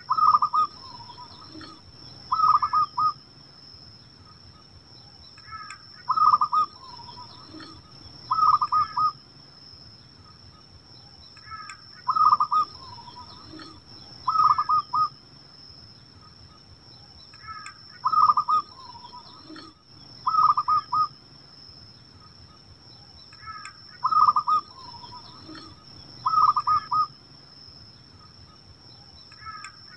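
Zebra dove (perkutut) singing its cooing song five times, about every six seconds. Each song is a short rising lead-in note followed by two bursts of rapid staccato coos about two seconds apart. A faint steady high-pitched tone runs underneath.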